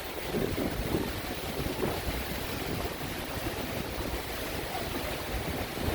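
Gusty wind buffeting the microphone over a steady rush of heavy rain.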